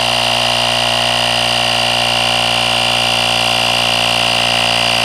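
Parkside 20 V cordless tyre compressor running steadily, pumping a bicycle tyre up to a preset 1.5 bar; a loud, even motor-and-pump drone with a high whine on top.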